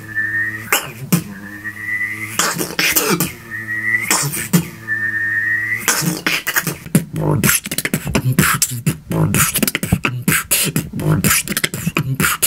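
A beatboxer's mouth imitation of a jet airplane engine: a high, slightly rising whistle held over a low hummed drone, in four bursts split by short sharp mouth sounds. About six seconds in it turns into a fast beatboxed beat of kick, snare and hi-hat sounds.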